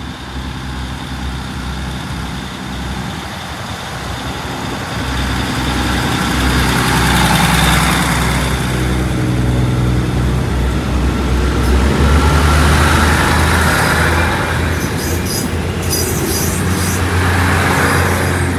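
Thai State Railway diesel railcar train moving along the platform close by, its underfloor diesel engines running and growing louder about five seconds in, swelling and fading as each car goes past. A run of sharp metallic clicks from the wheels on the rails comes near the end.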